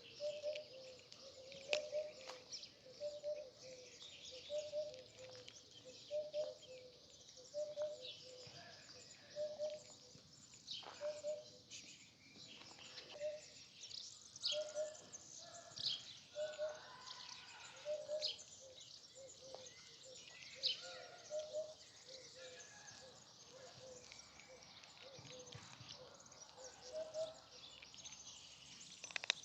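Birds chirping outdoors: many short, high chirps. Underneath, a low two-note call repeats a little more than once a second, stops about two-thirds of the way through, and comes back near the end.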